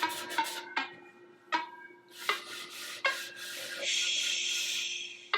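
Plucked-string background music with sharp picked notes, over a scratchy rubbing sound that is loudest from about four seconds in.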